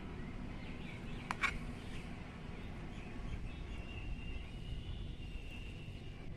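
Serving spoon knocking twice against the cooking vessel as the cooked rice is served, two short clinks about a second and a half in, over a steady low background hum.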